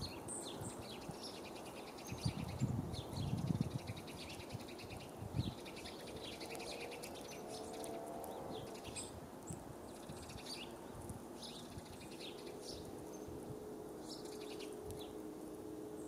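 Small birds chirping, short high calls scattered throughout. A few low thumps come in the first few seconds, and a faint steady hum sets in for the second half.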